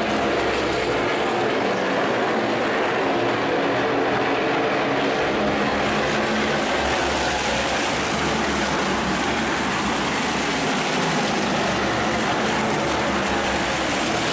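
NASCAR Whelen Modified race cars' V8 engines running at speed as the field laps the oval, a loud, steady blend of several cars' engine noise.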